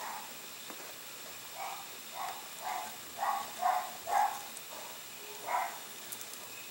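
A dog giving short, faint barks: six in quick succession, then one more about a second later.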